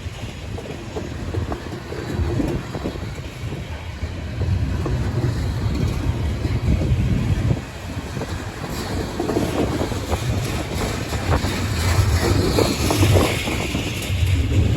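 A freight train passing close by: railcars rolling with a heavy low rumble and irregular clicks and clacks of the wheels over the rail, growing louder toward the end with a hiss of wheel and rail noise.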